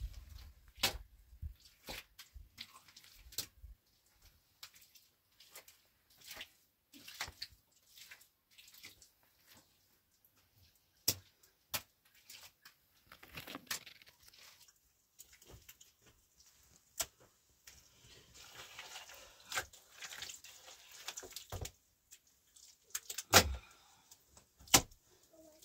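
Irregular sharp clicks and knocks from things being handled, with stretches of rustling. A longer rustle comes midway, and the loudest knocks come near the end.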